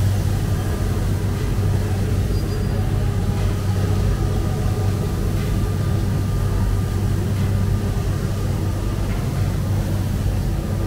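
Commercial drum coffee roaster and its cooling tray running with a steady low hum, the tray's rotating arms stirring a freshly dropped batch of roasted beans.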